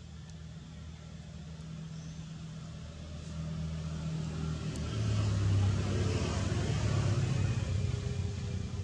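A motor engine running with a low, steady hum that grows louder, loudest from about five seconds in, like a vehicle coming close.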